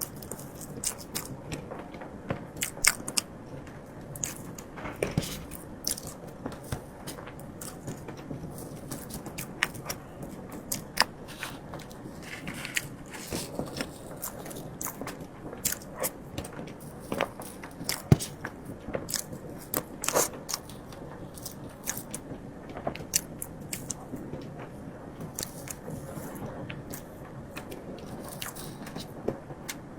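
Close-miked eating sounds: a person biting and chewing matcha mille crepe cake, with many small, irregular mouth clicks and smacks.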